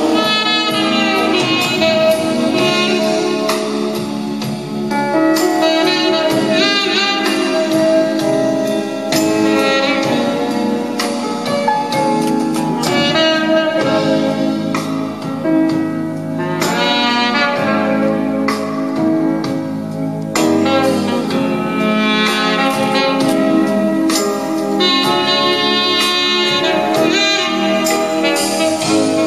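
Music played back from a cassette on a Pioneer CT-F500 stereo cassette deck during a playback test.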